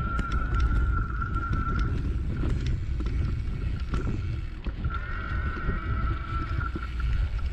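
Mountain bike riding over a dirt trail: a steady low rumble of wind on the camera's microphone and tyres on the ground, with rattling clicks from the bike over bumps. A thin steady high whine runs through the first two seconds, drops out, and returns about five seconds in.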